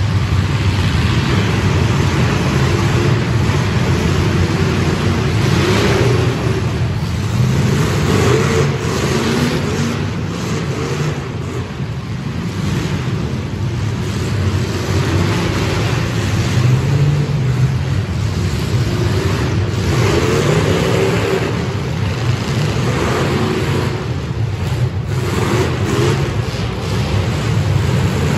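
A field of full-size demolition derby cars running together, their engines revving hard and loud, rising and falling. A few sharp bangs of cars smashing into each other stand out above the engines.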